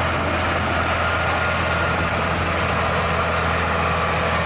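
Recorded truck engine idling steadily, a low even hum with hiss and no change in speed.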